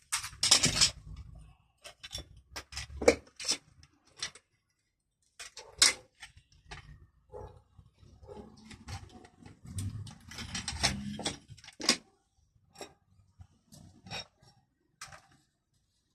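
Irregular clicks, knocks and light rattles of parts and hand tools being handled during work on a car power window mechanism, with a little scraping in between.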